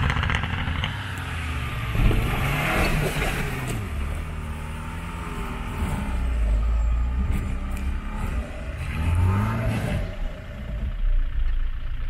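Land Rover Defender engine revving as the 4x4 climbs muddy concrete steps off-road, the revs rising near the start and again late on, with the tyres losing grip on the steps.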